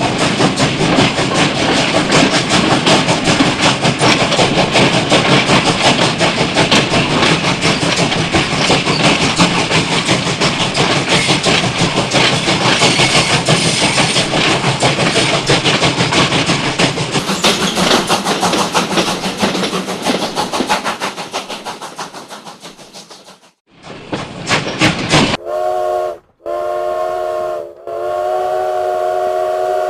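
A train running past with a rhythmic clickety-clack of wheels over rail joints, dying away about three quarters of the way through. After a brief break, a train whistle sounds a chord of several tones in three blasts near the end, the last one still going at the close.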